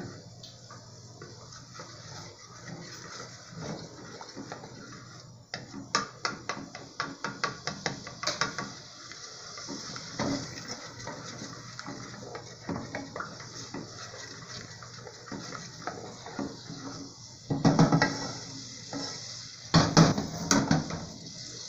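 A wooden spoon stirring and scraping in an aluminium pot of melting margarine over a steady high hiss. A run of quick taps comes around the middle, and two louder clattering knocks of the spoon against the pot come near the end.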